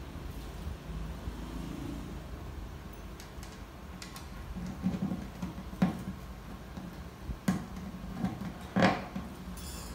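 Handling noise from fitting a new string at the bridge of a 12-string acoustic guitar: a few short, light clicks and taps of string and bridge pin, the loudest near the end, over a low steady hum.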